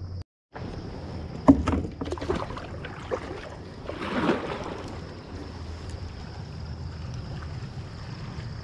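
Handling noises in a kayak: a sharp knock about a second and a half in, then several lighter clicks and taps, and a brief swish a little later, over a steady low rumble.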